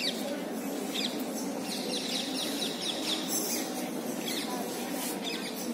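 Small birds chirping in short, quick, falling chirps that come in a few clusters over steady background noise.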